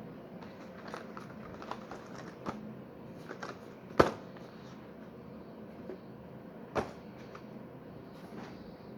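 Packaging handled by hand during an unboxing: a series of scattered light clicks and knocks, the loudest about four seconds in and another sharp one near seven seconds.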